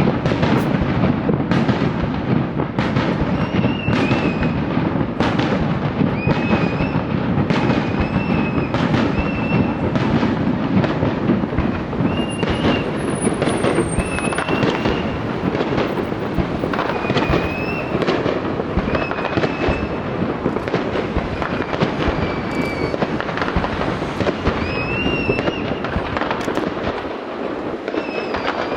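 Fireworks display: a dense, continuous run of bangs and crackling bursts, with short high whistles every second or two.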